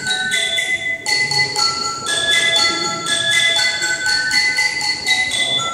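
Tuned bars of a sound installation, struck by small mechanical strikers, ringing clear pitched tones at several strikes a second. The notes overlap and sound like mallet percussion.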